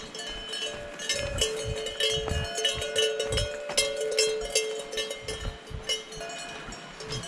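Several cowbells on grazing cattle ringing and clanking unevenly, their tones overlapping as the cows move.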